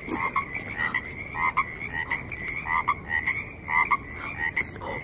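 A chorus of frogs calling from the water's edge: short croaks repeating about once a second over a steady high trill.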